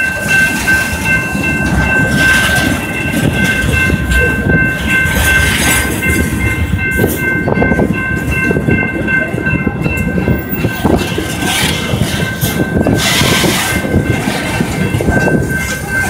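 Freight train cars rolling past close by, their wheels rumbling and clattering on the rails, with a faint steady high whine over the noise.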